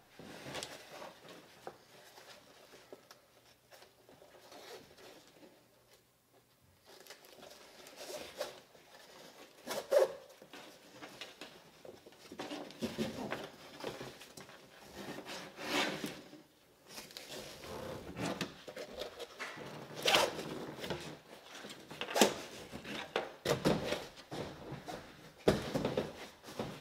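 Straps being pulled through their buckles and cinched tight: irregular scraping, zipping pulls of webbing with a few sharper clacks. These start about seven seconds in, after some faint handling.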